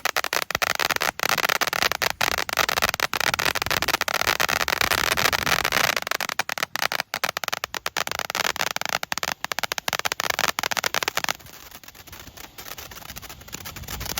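Butterfly Blaze consumer firework giving off dense, continuous crackle, which cuts off suddenly about 11 seconds in, leaving it much quieter.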